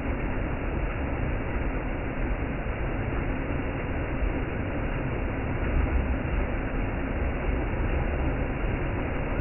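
Waterfall: the steady rush and rumble of falling water, heaviest in the low end, unbroken throughout.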